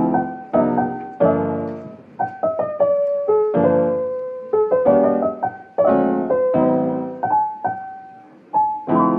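Solo piano background music: struck chords and single melody notes that ring and fade one after another.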